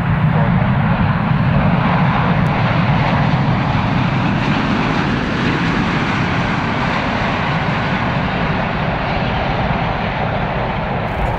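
Jet engines of an Airbus A380-800 (Rolls-Royce Trent 900) making a loud, steady rushing noise as the airliner rolls out on the runway after touchdown, easing slightly toward the end.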